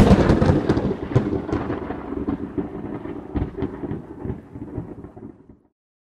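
A thunder-like sound effect under an animated logo: a sudden loud crack that rolls on as a crackling rumble and fades out over about five and a half seconds.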